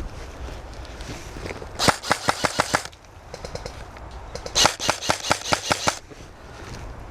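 Airsoft electric rifle (M4-style AEG) firing two full-auto bursts of rapid clicking shots, the first about a second long and the second about a second and a half.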